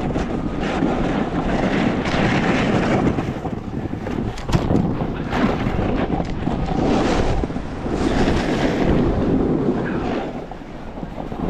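Snowboard sliding and scraping over packed snow, swelling and easing every second or two as the board turns, with wind rushing over the microphone.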